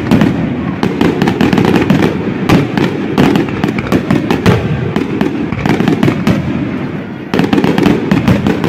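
Aerial firework shells bursting in rapid, overlapping succession, a dense barrage of bangs with a brief lull about seven seconds in before it picks up again.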